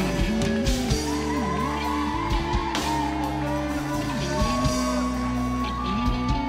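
Live gospel band music: a drum kit keeping a steady beat under bass and guitar, with a choir's voices in the mix.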